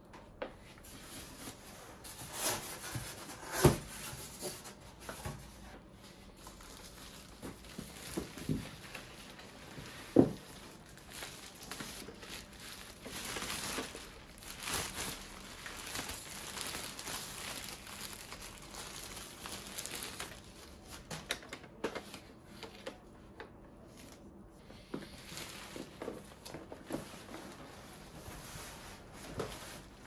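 Plastic packaging bag crinkling and rustling as it is handled and pulled in a cardboard box, with two sharp knocks of packaging being handled, about three and a half and ten seconds in.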